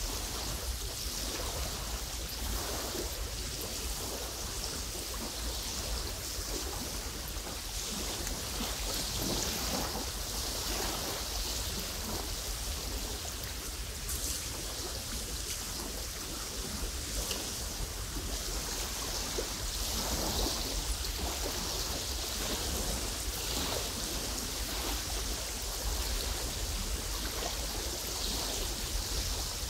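Wind blowing through tall lakeshore grass, a steady rushing hiss over a low wind rumble, swelling in gusts now and then.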